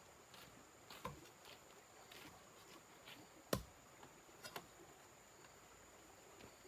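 One sharp strike of a hoe blade into bare dirt about three and a half seconds in, with a few fainter knocks and clicks around it over a near-silent background.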